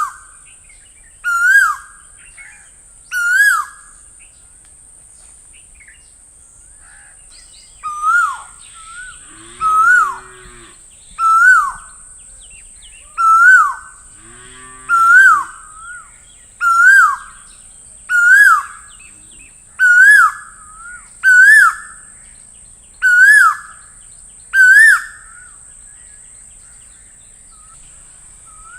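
Asian koel (koyal) calling: one rising call repeated about every one and a half seconds, three times, then after a pause a run of about eleven. A steady high-pitched whine runs underneath, and two short low sounds break in about a third of the way and halfway through.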